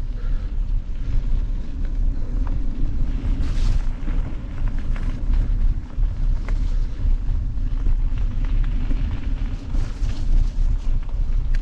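Wind buffeting a camera microphone over the rumble of a mountain bike riding down a dirt trail, with scattered clicks and rattles from the bike.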